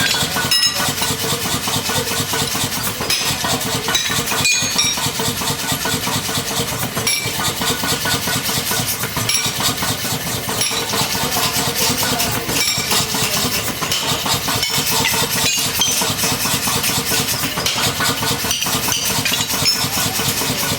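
Mechanical blacksmith's power hammer running, a steady machine sound with rapid, even repeated blows.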